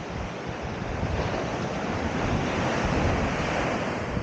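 Sea waves breaking and washing on the shore, a rushing surge that swells to a peak about three seconds in, with wind buffeting the microphone.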